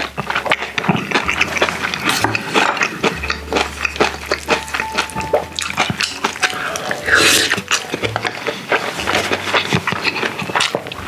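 Close-up eating sounds: wet chewing, smacking and many small mouth clicks as grilled mackerel and rice are eaten. Background music with a deep bass runs underneath.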